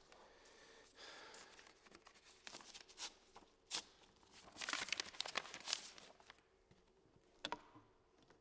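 Paper and cardboard rustling and crinkling as a vinyl record sleeve is handled, with scattered faint rustles and one sharp click near the end.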